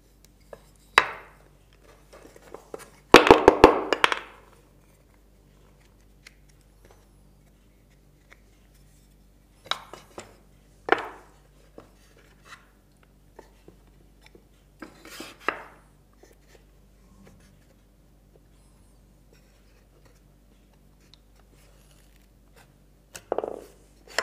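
Wooden parts of a folding lap desk knocking and clattering as they are handled and fitted together. The clatter comes in short, scattered knocks, the loudest a quick rattle of clacks about three seconds in.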